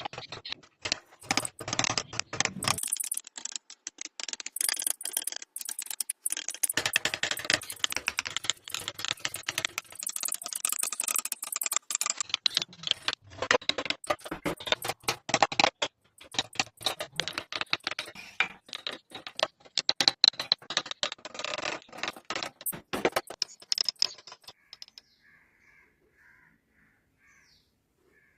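Rapid, uneven tapping and scraping of carving tools working wood, with short pauses between runs. Near the end it stops, and faint short calls repeat a few times.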